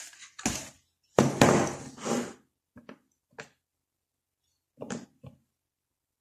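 Hard plastic parts of a toy doll's rocking cot knocking and clicking as the rocker pieces are pulled off and handled: a louder scrape lasting about a second near the start, then a few single knocks.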